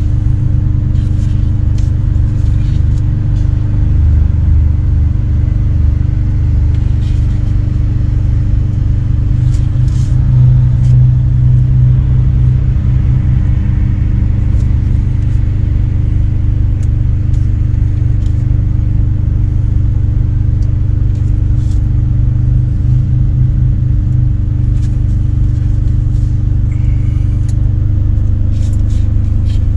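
A diesel engine idling steadily, giving a low drone, with a few light clicks of utensils and dough against the cooking pot.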